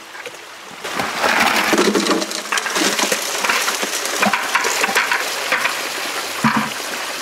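Water rushing through a Gold Hog Mini highbanker sluice while gravel and stones clatter in its metal hopper and classifier screen. The sound comes up about a second in, with a few dull knocks among the rattling.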